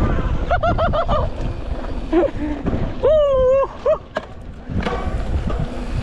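Rumbling wind and trail noise from a GoPro riding a mountain bike. Short high-pitched calls come about half a second in, and a longer, louder held call about three seconds in.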